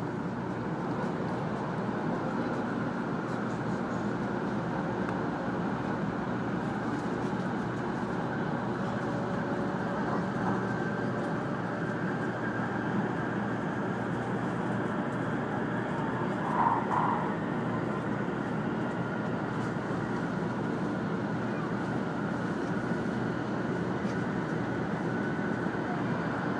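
Steady running noise heard inside the passenger cabin of a 500 Series Shinkansen travelling at speed: a continuous rumble and rush of wheels on rail and air. A short higher sound rises briefly above it about two-thirds of the way through.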